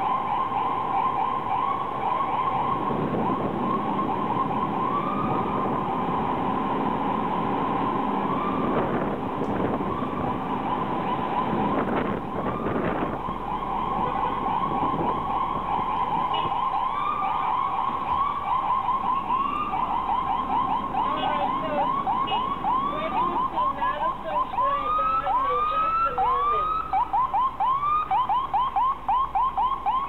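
Emergency-vehicle sirens in heavy city traffic, several overlapping: a fast yelp sweeping up and down about three times a second, joined in the second half by a slower wail rising and falling about once a second. They are the ambulance's sirens trying to get through gridlocked cars.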